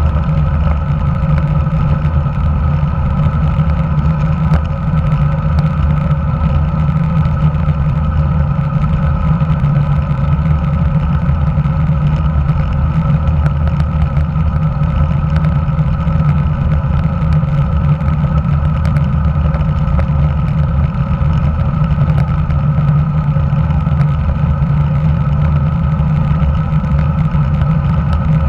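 Steady road and wind noise picked up by a handlebar-mounted camera on a road bike rolling along asphalt: tyre rumble and vibration through the mount mixed with wind rushing over the microphone, unchanging throughout.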